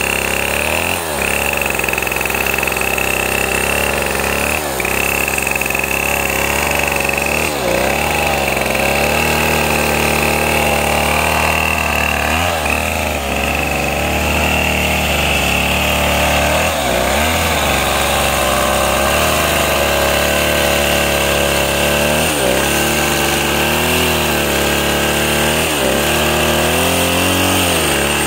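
Stihl two-stroke chainsaw engine running steadily at idle, not cutting, its pitch wavering slightly.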